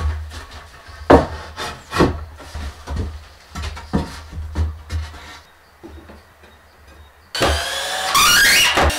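Wooden boards knocking and thudding as a ceiling beam is handled and pressed into place. About seven seconds in a cordless drill starts, its motor whining up in pitch and then running loud and steady.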